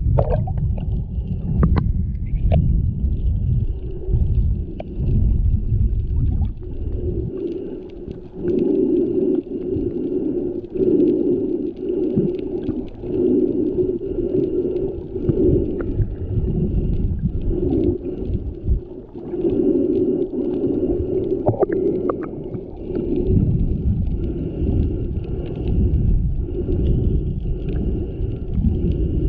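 Muffled underwater sound picked up by a GoPro in its waterproof housing during snorkeling: water rumbling and sloshing, with a humming tone that comes and goes every second or two.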